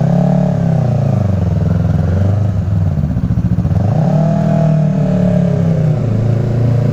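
Yamaha R3 motorcycle's parallel-twin engine through an M4 slip-on exhaust, revving up and dropping back twice while riding. The revs climb at the start and fall away by about two and a half seconds, with a choppy burble off the throttle. They climb again about four seconds in and ease off near the end.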